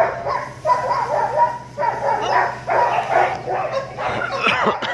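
A dog barking over and over in short, high yaps, about two or three a second.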